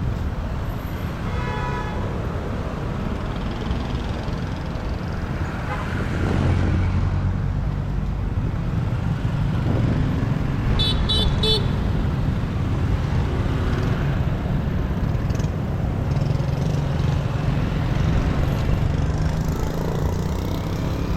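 Steady low rumble of motorbike and street traffic. A horn toots briefly about two seconds in, and three quick high horn beeps come about halfway through.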